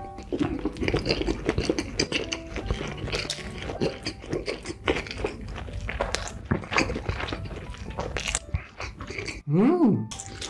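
Close-miked mukbang chewing: a man chews a big mouthful of food with many wet crunches and mouth clicks. Near the end comes a short, loud rising-and-falling sound from his voice.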